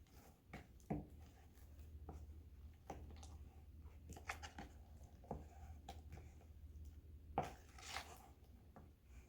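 Faint, scattered sticky clicks and squelches of clear-glue slime being stirred with cut magic-eraser cubes, over a low steady hum.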